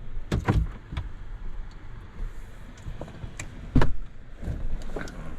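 Pickup truck door and handling noises: a few short clunks and knocks, the sharpest about four seconds in, over a low steady rumble from the vehicle.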